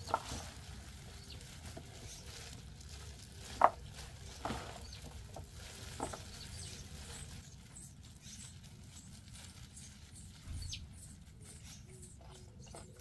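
Wild chives (dallae) being tossed and squeezed by hand in kimchi seasoning in a plastic basin: a faint, wet rustling and crackling of the stems and plastic gloves, with scattered small clicks and one sharper click a little over three and a half seconds in.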